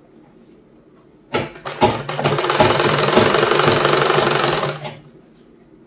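Sewing machine stitching a seam through nighty fabric, giving it a second, double line of stitching. It starts with a couple of knocks about a second and a half in, runs steadily for about three seconds, then stops.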